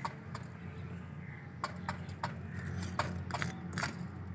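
Irregular sharp clicks and taps of small metal spoons knocking on concrete and scraping in sand, over a steady low hum.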